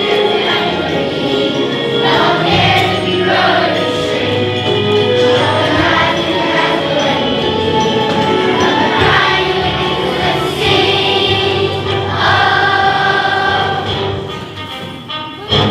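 Children's chorus singing a musical number with instrumental accompaniment. Near the end the music drops back and is cut off by a sudden loud thud.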